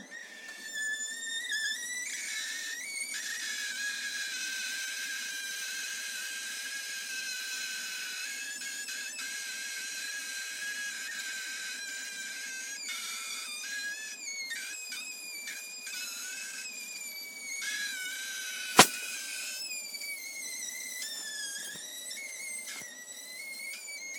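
Sausages roasting in an oven tray squealing: high, wavering whistles as steam escapes through their casings, several tones at once, shifting in pitch. A single sharp click, the loudest sound, about two-thirds of the way through.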